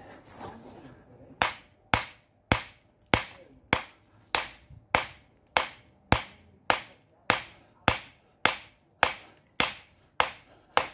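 A 24-ounce ball-peen hammer striking a small quartzite boulder in steady, sharp blows about two a second, starting about a second and a half in. The rock is being spalled, knocking pieces off it.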